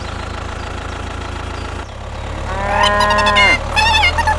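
A cow mooing about two and a half seconds in, the call held and then dropping in pitch at its end, followed by a short wavering call. Under it runs a steady low tractor-engine drone.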